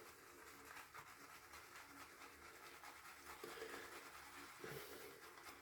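A synthetic shaving brush is swirled and scrubbed over the bottom of a nearly empty tub of shaving soap to load it, making a faint, steady, scratchy brushing.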